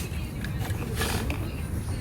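Repaired seat belt in a 1974 Dodge D100 being tried out, its webbing sliding with a short hiss-like rush about half a second in, over a low steady rumble.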